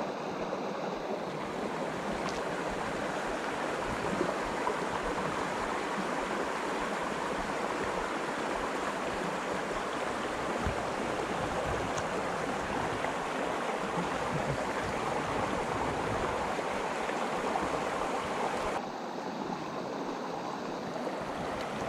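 Shallow mountain stream running over rocks: a steady rush of water, turning slightly quieter and duller about nineteen seconds in.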